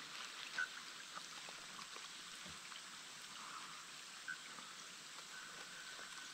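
Light rain falling on the water, a faint even hiss with scattered drop ticks. Two brief sharp sounds stand out, about half a second in and about four seconds in.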